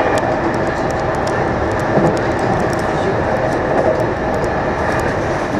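Electric multiple-unit train running along the line, heard from inside the cab end: a steady rumble of wheels on rail with a steady hum running through it.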